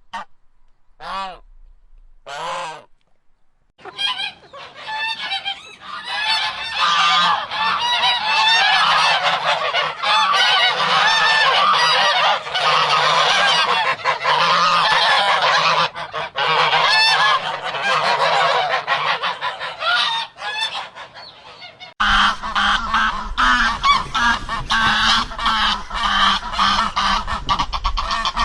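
Domestic geese honking: a few single honks at first, then a whole flock calling over one another from about four seconds in. About 22 seconds in the recording changes and a low rumble joins the honking.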